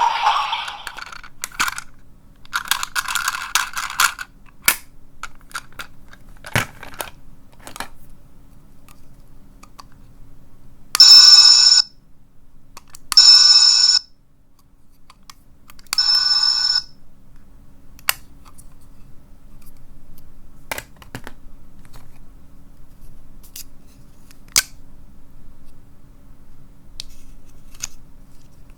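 Small plastic capsule toys being handled, with scattered clicks and rattles. Partway through, a sound-effect toy gives three short, high electronic ringing tones, each about a second long.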